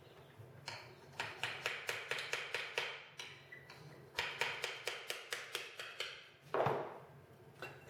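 Hammer tapping on the end bell of a 3 HP three-phase electric motor to knock it loose from the stator after the through-bolts are out. Two runs of quick light taps, about five a second, then one louder knock and a lighter one near the end.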